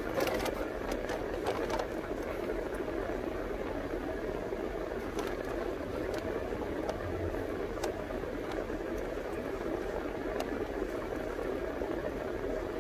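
Steady hum inside a car cabin, with a few faint clicks scattered through it, more of them in the first couple of seconds.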